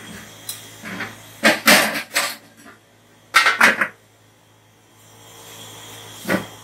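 Aluminium lid being set onto a large aluminium cooking pot and shifted into place, with two bursts of metal clanking and scraping and a single knock near the end.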